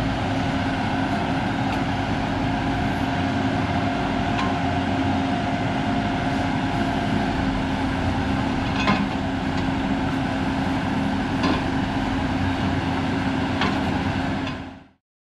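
Truck-mounted water-well drilling rig and its air compressor running with a steady, loud hum. Three short sharp knocks stand out in the second half, and the sound fades out just before the end.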